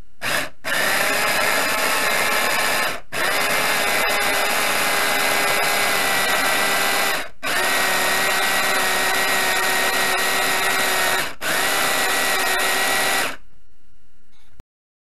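Electric mini food chopper running in pulses: one brief burst, then four runs of two to four seconds each with short pauses between, a steady motor whine.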